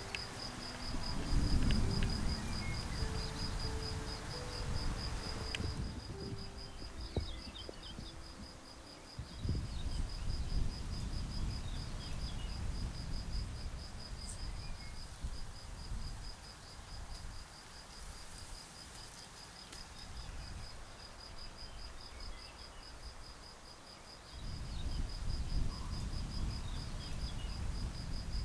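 An insect, most likely a cricket, chirping in a steady, fast-pulsing high trill that never stops, with faint bird chirps. Bouts of low rumble come in at the start and again near the end.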